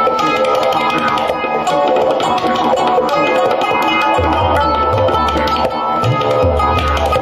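Live ensemble music: tabla drumming over a plucked zither and a didgeridoo. A deep, low drone comes in about four seconds in.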